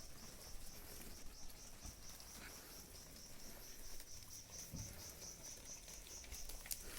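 An insect calling in a faint, high, steady pulsing chirp, about five pulses a second.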